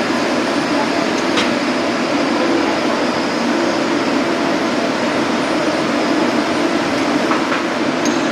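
Steady hissing hum of a TIG welding arc running on pipe, with a couple of faint ticks.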